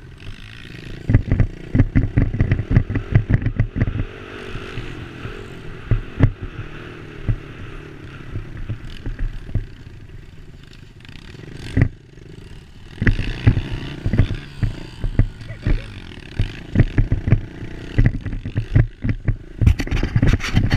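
Dirt bike engine running while riding a rough dirt trail, with dense rattling knocks as the bike jolts over bumps. The knocks come thickest about a second in and again from about thirteen seconds on, with a smoother stretch between.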